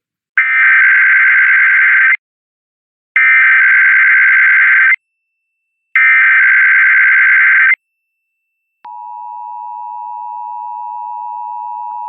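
Emergency Alert System test: three bursts of SAME header data, each under two seconds with about a second between them, followed about a second later by the steady two-tone EAS attention signal (853 and 960 Hz), which starts and holds.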